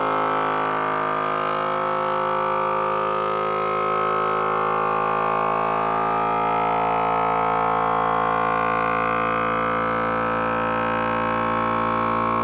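FoodSaver vacuum sealer pump running with a steady hum, drawing the air out of a mason jar through its hose and jar-sealer head.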